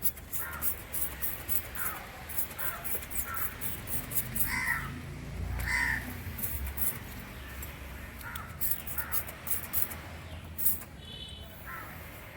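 Crows cawing repeatedly, several harsh calls with the loudest about halfway through, over scattered light clicking.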